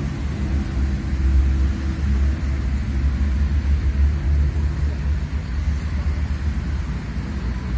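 A steady low rumble with faint held humming tones above it.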